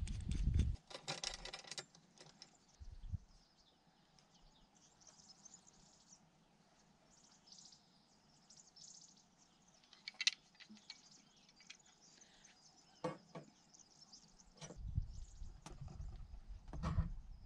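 Hand tube cutter being worked on a pipe: a brief rasp about a second in, then quiet turning with a few sharp clicks from the tool and pipe, over faint birdsong. A low rumble comes in near the end.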